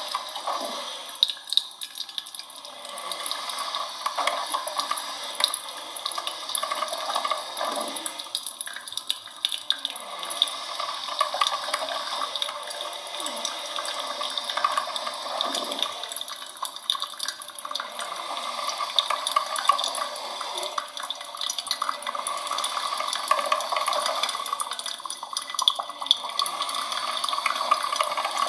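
Coffee machine running: a continuous, uneven watery noise with many small clicks and ticks.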